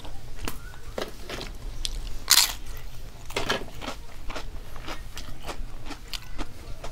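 A person chewing and crunching a mouthful of food, with many short sharp mouth clicks and one loud crunch about two and a half seconds in.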